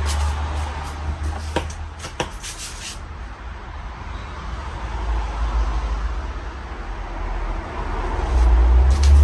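Casablanca Panama ceiling fan running, with a deep rumble that swells and fades and a light airy hiss above it. A few sharp clicks come in the first three seconds.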